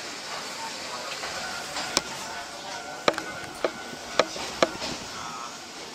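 Inside a slow-moving Choshi Electric Railway car: a steady running hiss, broken by five sharp clicks in under three seconds as the wheels cross rail joints and points.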